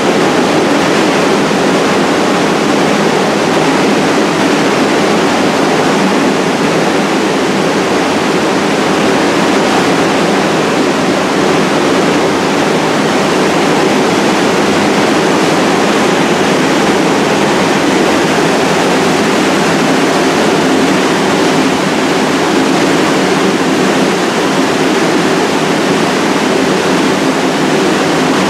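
Steady, unchanging roar of a stalled subway train standing at a station platform.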